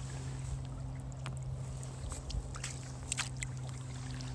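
Kayak paddling on calm canal water: scattered drips and small splashes from the paddle, over a steady low hum.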